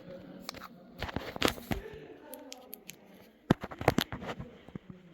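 Irregular clicks, knocks and scuffing, the loudest about a second and a half in and again around four seconds in.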